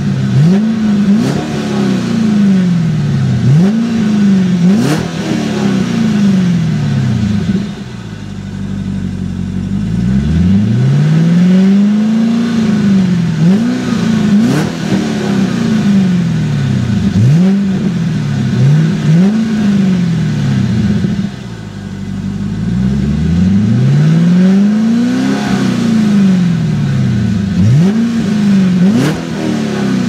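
Supercharged 6.2-litre LSA V8 of a 2015 Cadillac CTS-V Coupe revved in neutral through its dual exhaust, with the supercharger whining over the engine. It runs a string of quick blips, each rising and falling back, with two slower, longer revs, one in the middle and one near the end.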